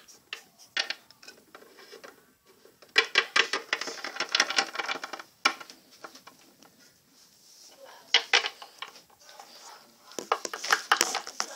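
Small plastic toy figures being handled, knocking and clattering on a wooden floor in irregular clicks, busiest about three to five seconds in and again near the end.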